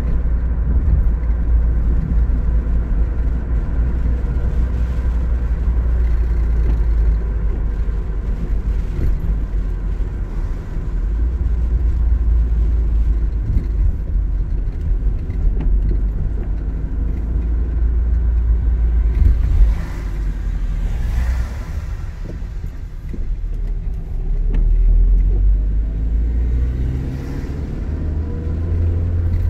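A car driving on a wet road, heard from inside the cabin: a steady low rumble of engine and tyres. About two-thirds of the way through there is a brief rush of noise, and near the end the engine note rises as the car speeds up.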